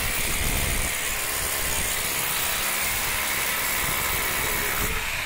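Electric hammer drill running steadily while boring anchor holes into the concrete roof slab for the structure's fasteners.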